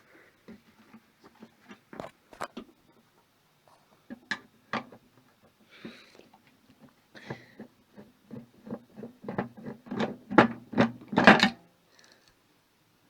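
Metal clicks and clanks of a screw being worked out of a rusty microwave's steel casing, with a low hum under them. The clicks come faster and louder near the end, then stop.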